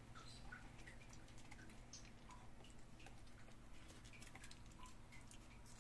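Faint, scattered ticks and clicks of puppies eating rice off a plastic tray, over a steady low hum.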